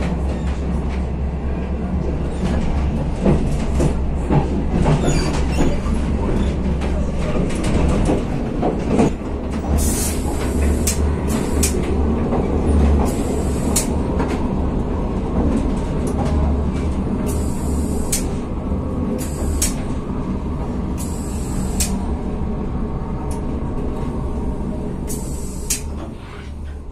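Passenger train heard from inside the carriage: a steady low rumble of the train rolling on the track, with several short high-pitched bursts, easing off near the end as the train slows to a stop at a station platform.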